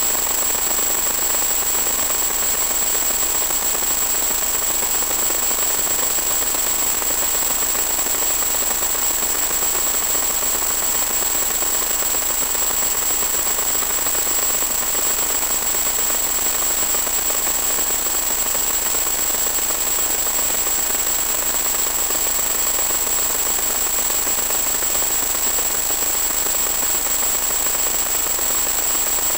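Steady static hiss with a thin high-pitched whine in it, unchanged while the motor is throttled back: noise from the audio channel of a 1.2 GHz analog FPV video link rather than any sound from the aircraft.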